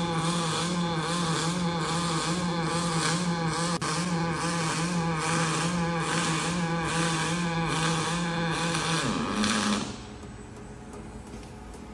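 A Kawasaki robot arc welding steel: a steady buzzing hum from the arc, pulsing about twice a second. The arc stops abruptly near the end as the weld finishes, leaving quieter workshop background.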